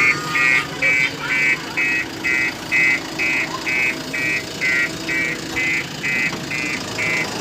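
JCB backhoe loader's reversing alarm beeping steadily, about two high beeps a second, with the diesel engine running underneath: the machine is backing up.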